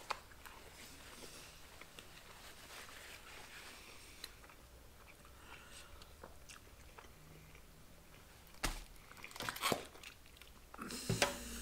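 Quiet chewing and mouth sounds of people eating a cheeseburger, with a few louder short crackles and clicks near the end.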